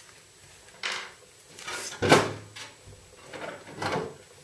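Metal side panel of a desktop PC tower case being worked loose and slid off: three short scraping, sliding noises, the loudest about two seconds in.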